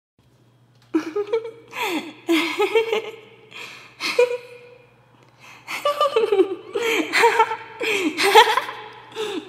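A person giggling: high-pitched bursts of laughter starting about a second in, a short lull around the middle, then a longer run of giggles.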